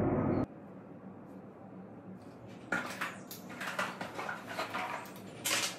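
Rustling and light handling noises in a quiet small room: a scatter of short scrapes and knocks, starting about halfway through, after a louder sound cuts off about half a second in.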